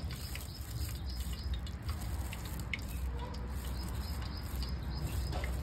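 A steel spoon scooping wet ginger-garlic paste out of a small steel bowl and dropping it onto chopped onions: a few faint, soft wet clicks and scrapes over a low steady hum.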